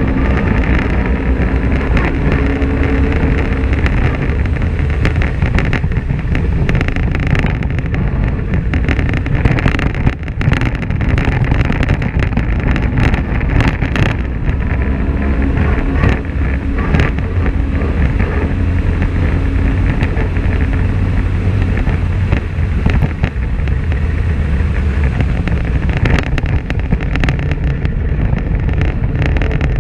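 Polaris RZR XP 1000 side-by-side's parallel-twin engine running steadily under way, its pitch rising and falling with the throttle now and then. Frequent short knocks and rattles from the vehicle going over rough ground.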